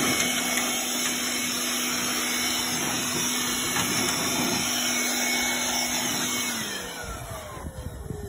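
Mastercraft 20V cordless air blower running flat out: a steady electric-motor whine over rushing air. About seven seconds in it is switched off and the whine falls in pitch as the fan spins down.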